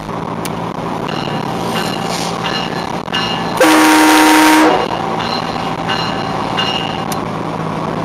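A train horn blasts once, very loud, for about a second near the middle, over steady car road and engine noise.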